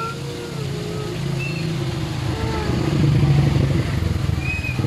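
A motor vehicle engine running close by, growing louder to a peak about three seconds in and easing off slightly near the end.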